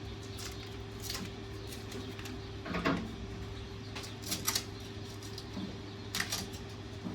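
Light clicks and knocks of hydraulic hoses and their metal fittings being handled and fitted, a few scattered taps, including a quick pair about halfway through, over a steady low hum.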